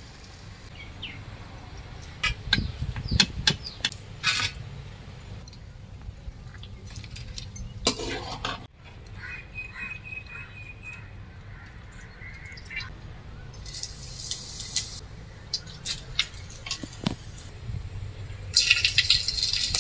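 Cooking sounds at a wood-fired stove: clicks and clinks of hands and utensils against steel cookware, a bird chirping faintly in the middle, and a burst of hissing near the end as whole spices go into the hot kadai.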